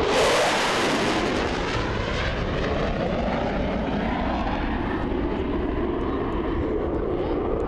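Small aerobatic airplane's engine running as it flies overhead. The sound starts abruptly, bright at first, then grows duller and steadier.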